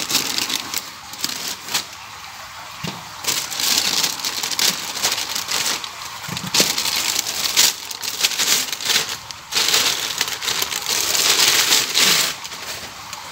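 Plastic wrapping bag crinkling and rustling in irregular bursts as a boxed rack-mount audio processor is lifted out of its packing and unwrapped.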